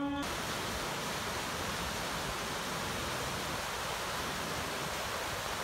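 A horn-like tone cuts off just after the start, then a steady, even rushing noise carries on at a constant level with no distinct events.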